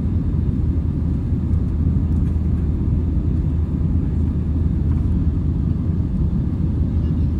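Steady low rumble of a jet airliner's engines and airflow, heard inside the passenger cabin during the climb after takeoff.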